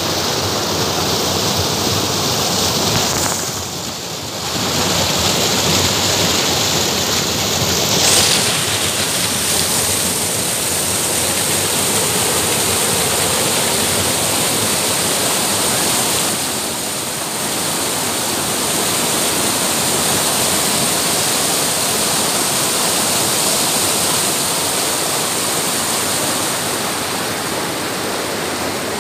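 Stream water rushing in a steady, loud cascade over granite boulders. It goes briefly quieter twice, about four and seventeen seconds in.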